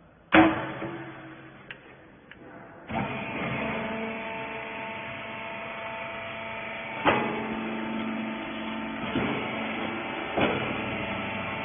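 A loud clunk just after the start, then about three seconds in the electric motor and hydraulic pump of a small rag baling press start and run with a steady hum. A few sharp clicks and knocks from the press sound over it.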